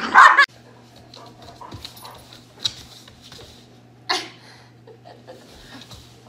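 Small dog yapping that cuts off suddenly about half a second in, followed by quiet room noise with a steady low hum and a few sharp taps and knocks.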